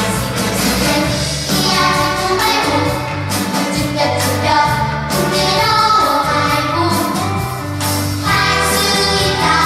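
A vocal ensemble singing a song with accompaniment and a steady beat.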